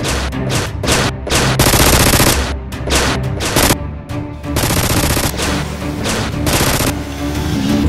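Machine-gun fire sound effects laid over background music: single shots first, then rapid bursts about a second and a half in, about four and a half seconds in, and again near the end.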